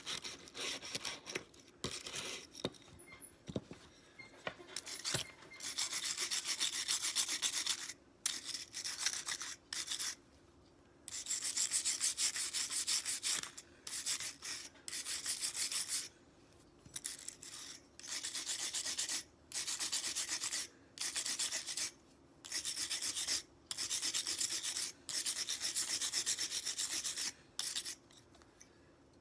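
Abrasive hand work on a folding knife: rubbing strokes in runs of one to three seconds with short pauses. The runs begin about five seconds in, after a few short scrapes and clicks.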